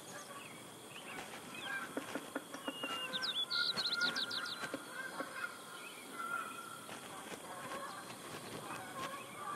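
Birds calling in open country. Faint scattered calls and light clicks throughout, with a short, rapid trill of high, rising chirps about three and a half seconds in.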